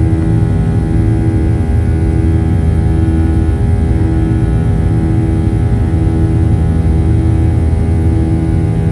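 Boeing 737-800's twin CFM56-7B engines at climb-out thrust, heard inside the cabin over the wing: a loud steady drone with several held tones, one of them swelling and fading about once a second.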